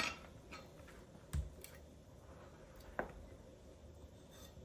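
Knife cutting avocado on a cutting board: a sharp click at the start, a dull knock about a second and a half in, and another click about three seconds in, with a few fainter ticks between.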